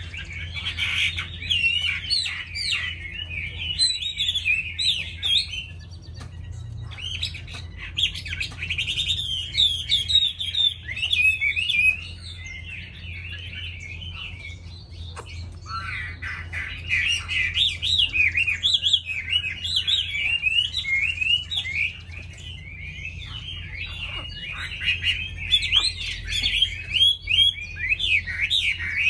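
Chinese hwamei (họa mi) singing: long runs of rapid, varied warbling and whistled notes, with a lull of a few seconds in the middle before the song resumes.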